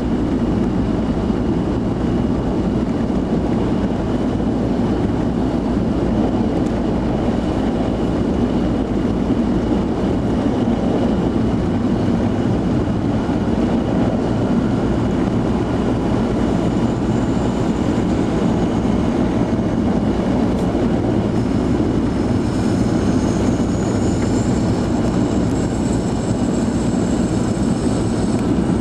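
Steady in-cabin rumble of a vehicle driving on a snow-covered road: engine and tyre noise with no break. A faint high whine comes in near the end.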